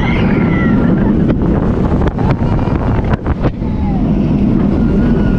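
Intamin jet-ski roller coaster train running fast along its steel track, heard from the front seat: wind buffeting the microphone over a steady wheel rumble. There are a few sharp knocks and clatters between about one and three and a half seconds in, and faint high gliding whines above.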